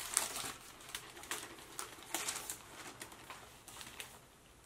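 Tissue paper rustling and crinkling as a package is unwrapped by hand, in short irregular rustles that die away near the end.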